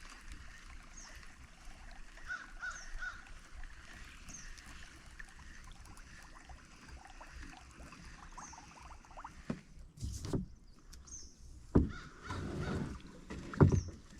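Kayak on the water: faint birdsong at first, then from about ten seconds in several loud knocks and watery sloshes, like paddle strokes and a paddle bumping the hull.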